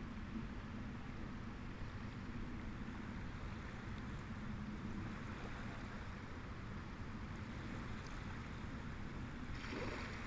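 Steady background ambience: a low rumble under a soft rushing hiss, with a short brighter burst of hiss just before the end.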